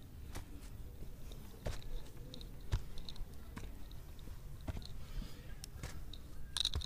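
Faint footsteps crunching and clicking irregularly on dry leaves, twigs and dirt while climbing a steep, rocky trail.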